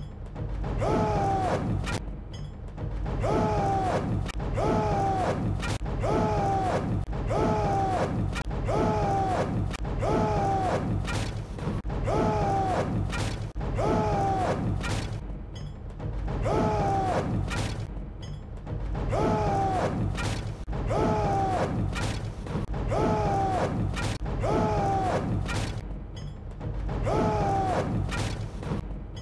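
A chorus of men's voices shouting in rhythm, about one shout a second, each sliding down in pitch, over a steady low rumble.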